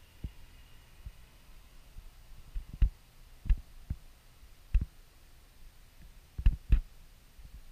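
A handful of short, dull low thumps at uneven intervals over a quiet background, two of them in quick succession late on.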